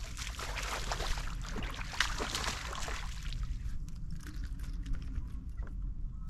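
A small hooked fish splashing and thrashing at the water's surface as it is reeled to the boat. The splashing is busiest in the first three seconds, then thins to a few scattered splashes and clicks as the fish is swung out of the water, all over a low steady rumble.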